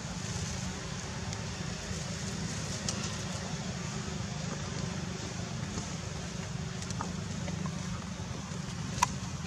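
Steady low rumble and hiss of outdoor background noise, with a few short clicks, the sharpest near the end.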